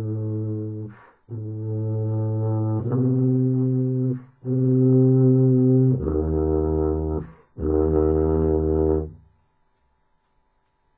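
Low brass instrument played solo: a phrase of about six held notes, the last two pitched lower, ending about nine seconds in.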